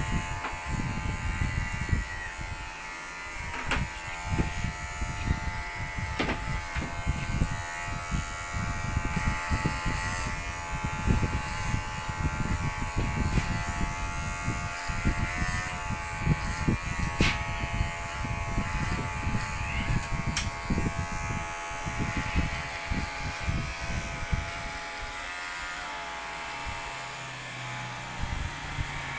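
Electric hair clipper running with a steady hum as it cuts short hair, with an irregular low rumble underneath.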